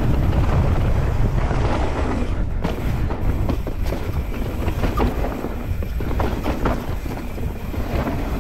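Mountain bike descending rough trail at speed: wind rumbling on the microphone, with constant rattling and knocks from the bike over roots and rocks.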